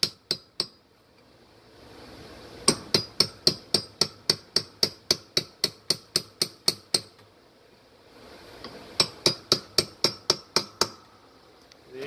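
Steel hammer giving light taps to a socket held over a washer's new motor coupler, driving the coupler onto the transmission shaft. The taps come in three runs with a metallic clink: a few right at the start, a long run of about twenty taps at about four or five a second from nearly three seconds in, and a shorter run near the end.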